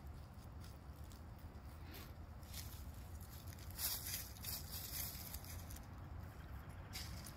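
Faint, irregular rustling and crunching of dry fallen leaves as backyard chickens scratch and peck through the leaf litter, with a louder rustle about four seconds in.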